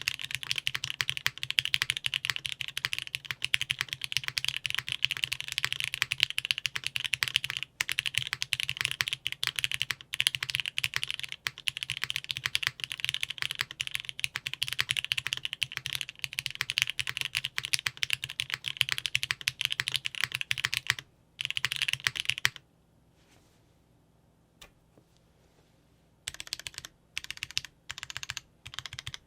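Typing on a custom tenkeyless mechanical keyboard with lubed and filmed Cherry MX Black linear switches in an aluminum top-mount plate, under GMK keycaps. There is fast, continuous typing for about twenty seconds, then a short burst, a pause of a few seconds, and then single, slower keystrokes near the end.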